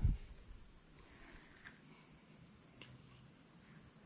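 Faint, steady high-pitched insect trilling, typical of crickets or katydids in the pond-side vegetation; one trill cuts off a little before halfway while a higher one keeps going.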